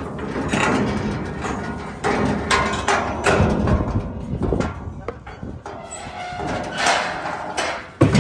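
Miniature Highland cattle's hooves clattering and thumping on the floor of a steel stock trailer as they are loaded, with irregular knocks against the trailer's metal sides.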